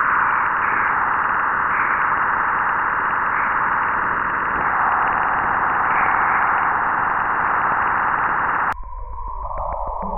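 "Planet sound" space recordings, spacecraft radio data turned into audio: a steady hissing whoosh that cuts off suddenly near the end. It gives way to a different recording with a whoosh falling in pitch over a low rumble.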